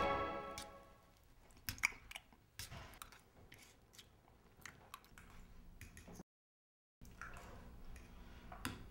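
A fork clicking and scraping on a plate with faint chewing: a few scattered light clicks in a quiet room. Music fades out in the first second.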